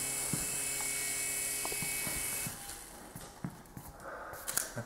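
Phantom 6010 mini RC helicopter's small electric motors and rotors giving a steady high whine, which stops about halfway through. A few faint taps and clicks follow.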